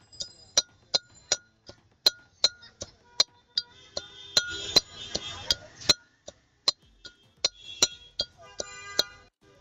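Pestle pounding in a stone mortar, about two and a half sharp clinking strikes a second, each ringing briefly, as green chillies and herbs are crushed into a paste.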